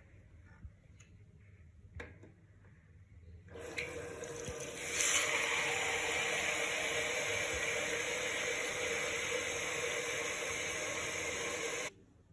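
Water running from a tap into a sink or basin: it starts about three and a half seconds in, swells a second later, runs steadily, then cuts off suddenly near the end as the tap is shut.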